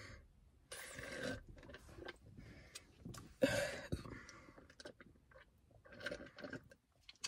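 Close mouth sounds of sipping an iced drink through a straw from a plastic cup, with chewing, in short irregular bursts; the loudest comes about three and a half seconds in.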